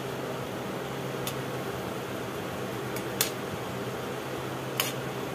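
Mango fritters deep-frying in hot oil in a kadai: a steady sizzle over a low hum, with a slotted frying spoon clicking against the pan three times.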